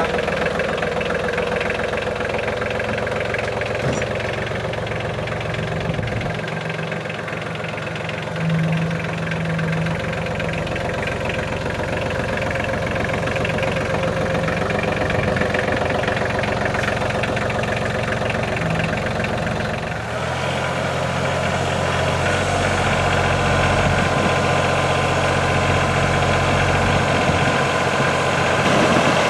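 Kubota L3010 HST compact tractor's three-cylinder diesel engine running steadily as the tractor drives, its low note shifting about two-thirds of the way through.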